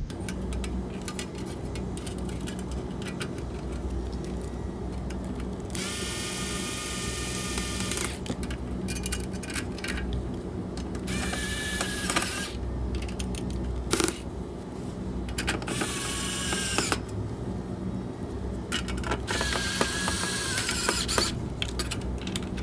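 Cordless power drill/driver running in four short bursts of a second or two each, driving screws to fasten the display's fan assembly back in place.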